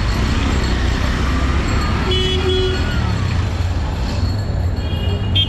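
Busy street traffic: a steady engine rumble, with a vehicle horn giving two short toots about two seconds in and another horn sounding right at the end.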